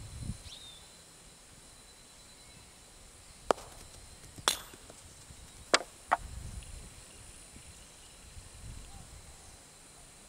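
Four sharp knocks: two about a second apart, then two more close together about a second later. A steady high insect hum runs underneath.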